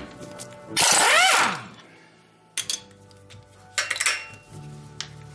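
A power tool runs for just under a second with a rising whine, spinning a nut off a bolt on an ATV's rear wheel knuckle. Sharp metallic clinks of tools follow twice.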